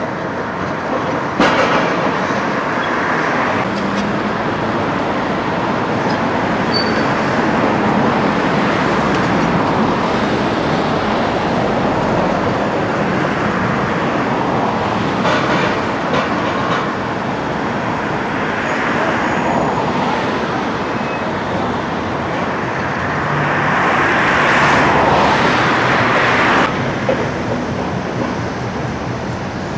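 Demolition-site noise from tracked excavators working over broken concrete: their diesel engines run steadily under clattering rubble, with a louder stretch of a few seconds near the end.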